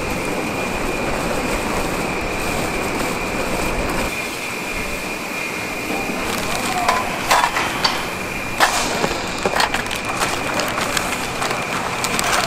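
Steady factory background of large electric fans and machinery running, with a steady high whine. From about six seconds in come sharp, irregular clatters and scrapes as crisp peanut-rice bars and metal scoops knock about on the steel tray.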